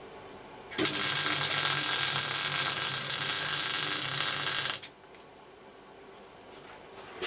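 MIG welder running a weld on a steel tank-mounting bracket on a motorcycle frame. The steady crackling arc starts about a second in and cuts off after about four seconds.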